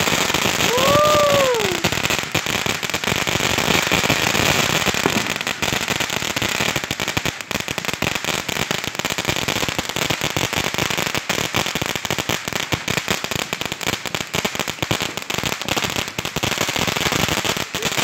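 Fire Dancer fountain firework spraying sparks with a steady, dense crackle. About a second in, a short tone rises and falls.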